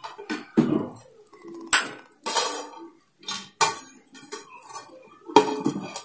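Metal plate lid clanking and scraping against an aluminium cooker pot as it is handled and set on top for dum cooking: a series of sharp clanks, the loudest about two seconds in and near the end.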